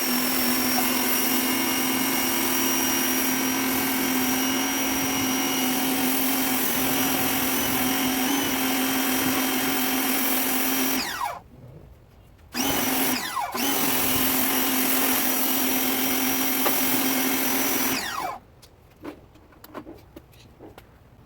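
Electric pressure washer (Greenworks, 2000 psi) running with water spraying from the nozzle. About eleven seconds in it cuts out and winds down. It starts again in short bursts, then runs steadily until it stops and winds down about three seconds before the end.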